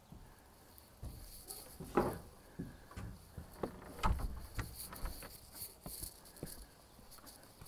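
Footsteps of the person filming, walking out of a shed onto dry dirt and pine litter: irregular knocks and crunches about one or two a second, with a faint high chirring in the background.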